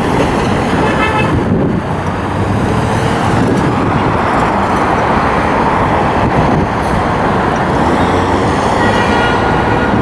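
Busy city-street traffic at an intersection: cars, vans and buses passing in a steady rush. Two short high tones rise above it, one about a second in and another near the end.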